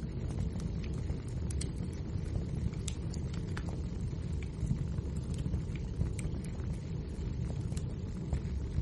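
Wood fire burning: a steady low rumble of the flames with scattered sharp crackles and pops of the logs, several a second.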